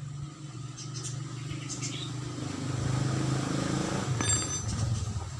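A motor vehicle engine running steadily, growing louder over the first three seconds, with a few light metal clicks.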